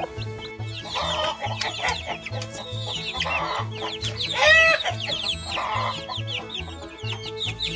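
Chicks peeping busily and hens clucking, with a louder hen call about halfway through, over background music with a steady low beat.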